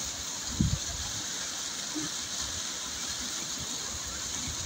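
Steady rush of a waterfall, with one brief low thump about half a second in.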